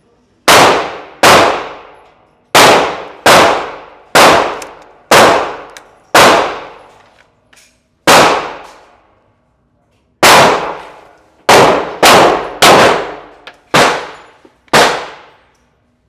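Glock pistol firing about fourteen shots at a steady, unhurried pace, some in quick pairs under a second apart, each shot with a long echoing tail.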